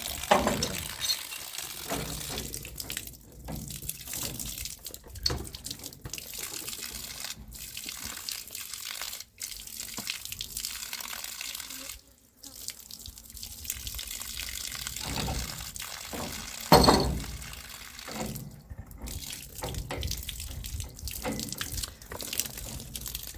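Water spraying and dripping from a garden tap's plastic fitting while the tap is being changed, a steady hiss broken by repeated knocks.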